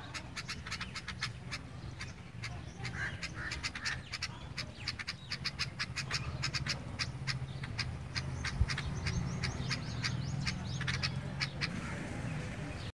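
Sparrows chirping: a dense, rapid run of short sharp chirps, several a second, over a steady low hum.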